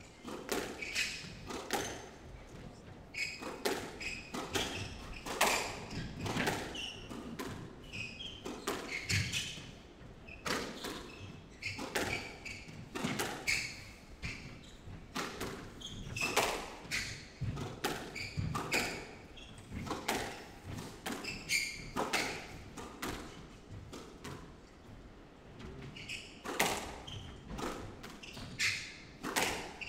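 Squash rally: the ball struck by rackets and hitting the court walls in a quick, irregular run of sharp knocks.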